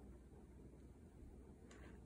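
Near silence: room tone with a low hum, and one faint brief rustle near the end.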